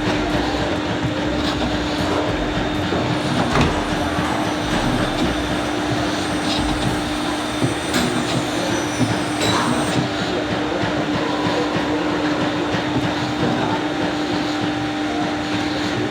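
Workshop machinery running steadily: a constant hum over a rumbling noise, with a few short knocks.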